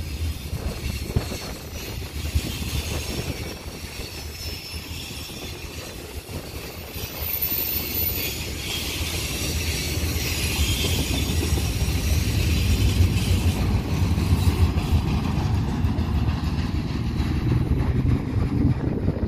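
Container wagons of a freight train rolling past: a steady rumble of steel wheels on the rails, with thin high wheel squeals in the first half.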